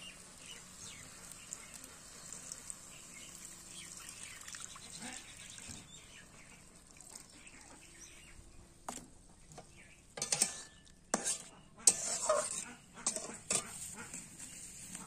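Curry simmering with a faint sizzle in a steel karahi. From about ten seconds in, a metal spatula scrapes and knocks against the pan several times.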